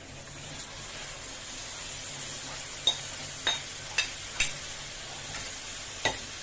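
Marinated chicken sizzling as it is tipped into a hot pan of fried masala. A metal spoon clinks sharply against the ceramic bowl and pan five times from about halfway through.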